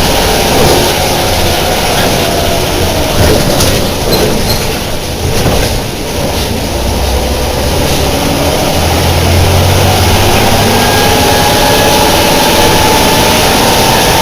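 Deutz BF6L 913 C air-cooled turbo-intercooled six-cylinder diesel of an El Detalle OA 101 bus running under load, with a thin high whine over the engine. It eases off briefly about midway, then pulls steadily again.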